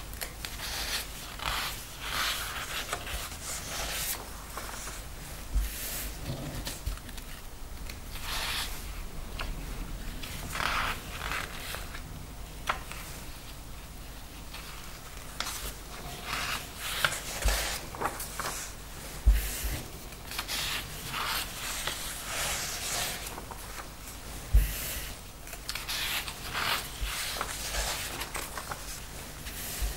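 Sheets of paper handled by cotton-gloved hands: short rustles and scrapes as pages are slid, turned over and laid down, with a few soft low thumps.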